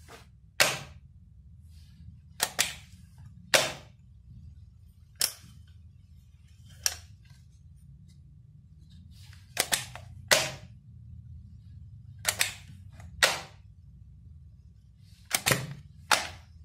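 Sharp plastic clicks and snaps from a 3D-printed air pistol's mechanism being worked by hand, about a dozen in all, often in quick pairs, a second or two apart.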